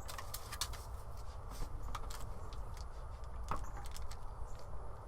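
Plastic casing of a battery-operated carbon monoxide alarm being handled and its battery compartment opened: irregular small clicks and rattles, a sharper click about three and a half seconds in. A steady low rumble runs underneath.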